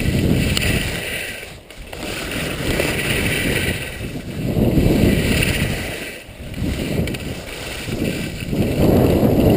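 Alpine skis sliding and scraping down plastic honeycomb dry-slope matting, the noise rising and falling every two seconds or so. The skis are ordinary snow skis, and plastic-on-plastic friction makes them run with more drag than on snow.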